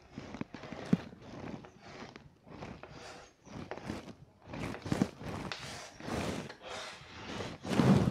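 Chalk writing on a blackboard: a string of short, irregular scratching strokes with a few sharp taps, and a louder, duller stroke near the end.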